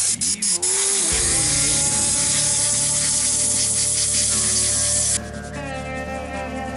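Compressed-air solvent wash gun spraying diesel onto a moped engine to degrease it: a few quick squirts, then one long hissing spray that cuts off about five seconds in.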